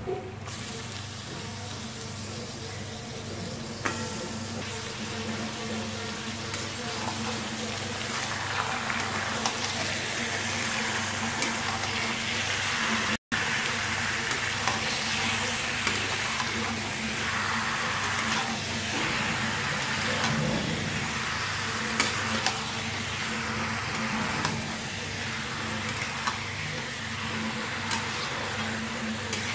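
Raw mutton pieces sizzling in hot oil with onions and whole spices in a kadhai. The sizzle grows fuller about a third of the way in, with occasional clicks and scrapes of a metal spatula stirring the meat, over a steady low hum.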